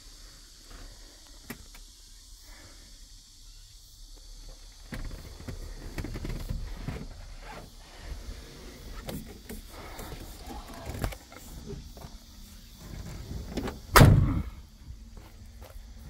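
Scattered handling and movement noises in a Volvo FH12 truck cab, then a loud single slam about fourteen seconds in as the cab door is shut.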